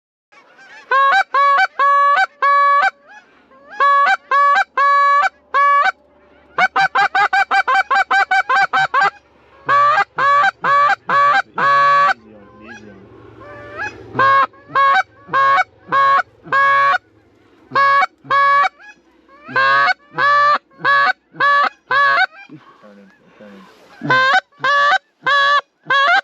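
Goose calls blown from the blind: loud, regular honks in runs of several notes, with a fast run of short clucks about seven seconds in, calling to geese flying near the decoy spread.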